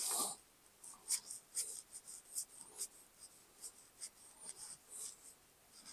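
Music leaking faintly from over-ear noise-cancelling headphones, heard only as thin, tinny hi-hat-like ticks about twice a second.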